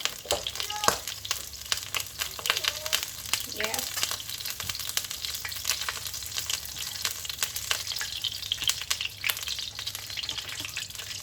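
Whole spices (star anise, cinnamon stick and cardamom pods) sizzling in hot vegetable oil in a pan, with a dense crackle of small pops over a steady hiss. The spices are being dry-tempered in the oil to bring out their aroma.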